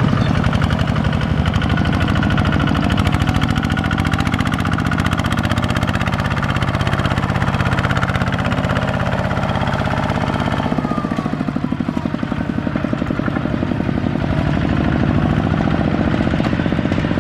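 Kubota ZT155 single-cylinder diesel engine of a two-wheel walking tractor running steadily, with a fast, even chug, while pulling a loaded trailer. About eleven seconds in its lowest notes fall away and it gets slightly quieter.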